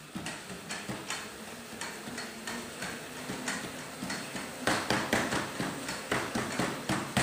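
Footfalls knocking on a treadmill's running deck, about three a second, louder from a little past halfway.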